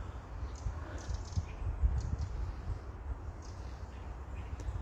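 Low, uneven rumble with scattered faint clicks and rustles: the ambience of someone walking outdoors with the camera.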